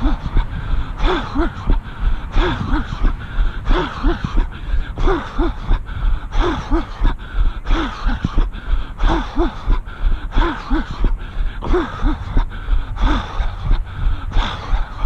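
A runner breathing hard and rhythmically while running: short voiced breaths in pairs, a pair about every second and a half, over the patter of footfalls and a steady low rumble.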